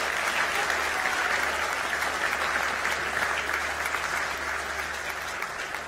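Audience applauding, a steady wash of clapping that eases off slightly toward the end.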